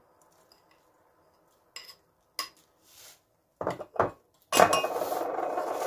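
A spoon clicking a couple of times against a ceramic bowl and a metal cake tin as buttered biscuit crumbs are spooned into the tin. It ends in a louder steady scraping of the spoon on the crumbs and tin, lasting about a second and a half.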